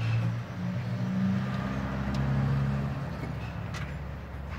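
A vehicle engine running, its low drone shifting in pitch and easing off after about three seconds, with a couple of faint light clicks.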